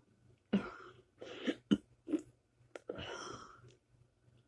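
A person's short burps and breathy throat noises, about half a dozen in quick succession, with a couple of sharp clicks among them.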